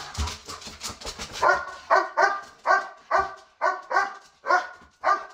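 Doberman barking over and over, about two barks a second, starting about a second and a half in. Before that, claws clatter on a hard floor as the dogs run up.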